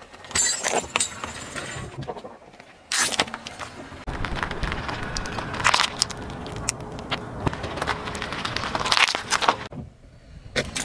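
A car tyre rolling over small plastic toys and objects, crushing them: a run of sharp cracks and crunches over several short takes, with a longer rough crunching stretch in the middle.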